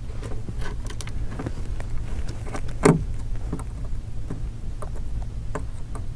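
Precision Phillips screwdriver working the small screws of an iPhone 5's metal connector shield: a scatter of light ticks and clicks of the tip on screws and metal, with one sharper click about three seconds in, over a steady low hum.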